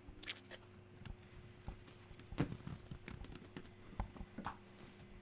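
Scattered small crunches, clicks and knocks as a man bites into and chews an apple and shifts about, over a faint steady hum.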